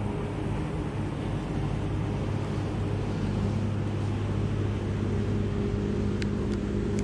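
A passing motorboat's engine running steadily, a low even drone.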